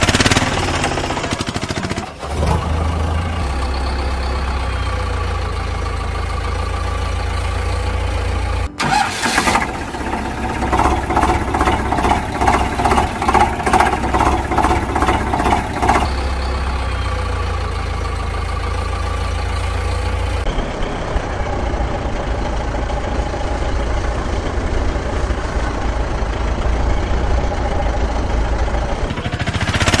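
Engine sound effects dubbed over toy vehicles: a running motor vehicle engine that switches abruptly at several edits, with a stretch of regular chugging pulses, about two a second, in the middle.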